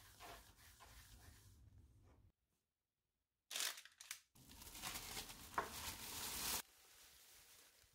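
A thin plastic bag rustling and crinkling loudly as it is pulled over a pan of shaped dough balls, cutting off sharply. Before it come faint soft rubbing sounds of dough being rolled on a countertop.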